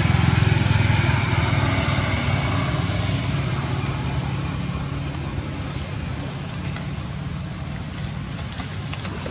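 A motor vehicle's engine running, loudest in the first couple of seconds and then slowly fading.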